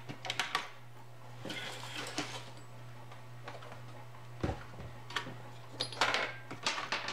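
Small metallic clicks and light rattles as a MIG gun's contact tip is unscrewed and handled, in several short clusters with a duller knock a little past halfway, over a steady low hum.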